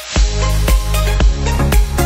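Electronic dance music: a heavy bass comes in just after the start, with a steady beat about twice a second.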